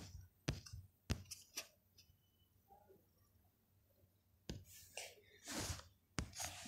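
Sharp fingertip taps on a phone's touchscreen, picked up by the phone's own microphone: several clicks in the first second and a half, then soft rustling handling noise and another tap near the end.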